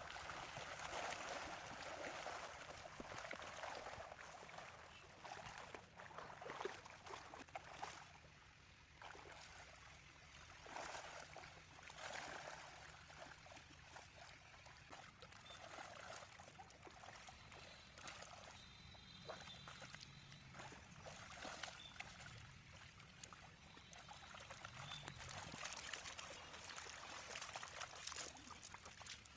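Shallow, muddy pond water splashing and sloshing as a cast net is dragged through it and hauled in, swelling and fading irregularly.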